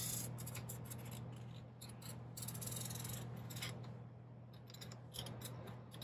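Sharpie marker tracing around a wrench on cardboard: faint scratching in short strokes with brief pauses.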